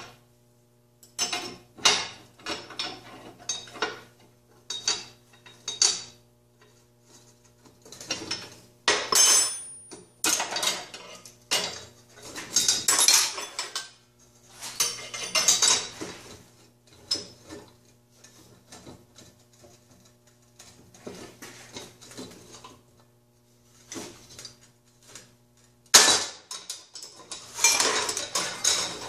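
Steel hand tools clinking and clattering as a wrench works a nut loose on threaded rod held in locking pliers, in irregular bursts with a louder clatter near the end, over a steady low hum.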